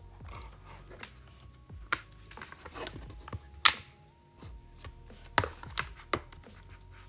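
Cheap membrane-switch "gaming" keyboard, slightly modded, being typed on in scattered, uneven keystrokes. The loudest strike comes about halfway through, and a few more come close together a little later.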